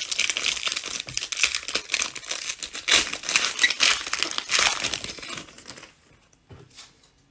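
Foil-lined trading card pack wrapper being torn open and crinkled by hand: dense crackling that stops about six seconds in, followed by a couple of faint clicks.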